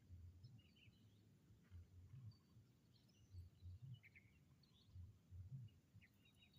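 Faint, scattered chirps of small wild birds over a low rumble that swells and fades about once a second.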